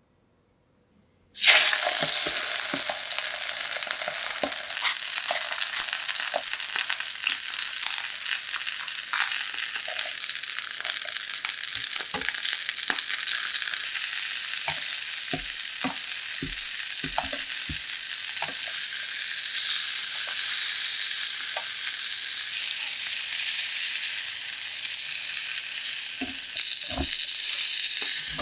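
Spanish mackerel steak sizzling loudly in hot oil in a stainless steel pan, the sizzle starting suddenly about a second in. Short clinks of a metal spoon and tongs against the pan come now and then as the fish is basted with butter and handled.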